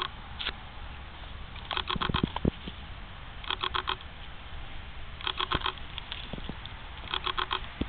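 A dog chewing and crunching on fresh corn husks, with short scattered crunches. Behind it, a run of about four quick high chirps repeats four times, roughly every couple of seconds, and is the loudest sound.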